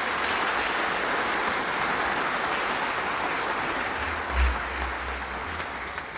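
A crowd applauding steadily, with a brief low thump about four seconds in; the clapping fades near the end.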